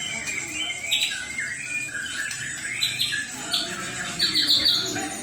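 A songbird singing hard in fast, harsh bursts of notes, with a quick run of repeated notes near the end. This is the 'nabrak' over-fighting song of an aggressive bird in fighting mood.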